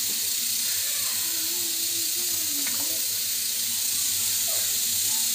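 Steady hiss throughout, with a single light click of a spoon against a steel tin about two and a half seconds in as gram flour is spooned over the fish.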